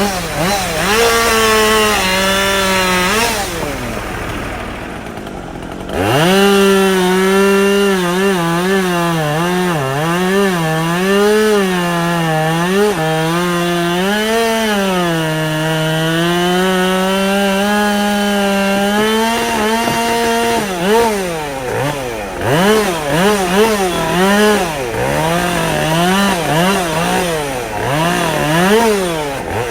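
Two-stroke chainsaw cutting wood, its engine pitch dipping and recovering as the chain bites. It drops to idle for a couple of seconds near the start, then revs back up and holds a steady cut; in the last third the revs rise and fall quickly and unevenly.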